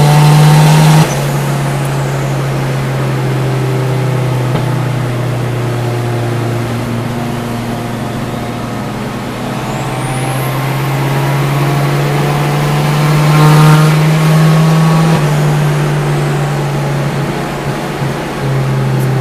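Engine of a turbocharged Nissan Sentra GA16DE four-cylinder, heard from inside the cabin while driving: a steady drone that climbs in pitch a few seconds past the middle, then drops suddenly. A faint high whistle rises briefly around ten seconds in.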